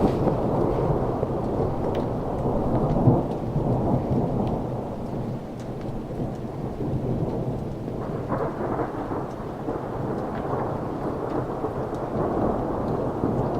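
Rolling thunder from a storm overhead: a long, continuous low rumble, loudest in the first few seconds, easing off, then swelling again about eight seconds in. Rain falls with it.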